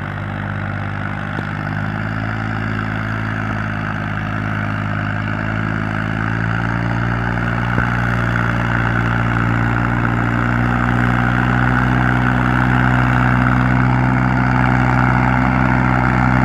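Tractor engine running steadily, a low, even throb whose pitch and loudness creep up gradually from about six seconds in.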